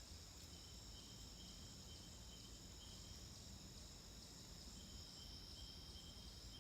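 Near silence with faint, steady, high-pitched insect chirring in the background, broken by an on-and-off thinner trill.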